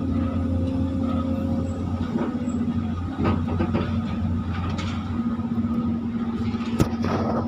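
Volvo excavator's diesel engine running steadily under load as the boom swings a bucket of wet mud, heard from inside the cab. There is a knock about three seconds in and a sharper one near the end.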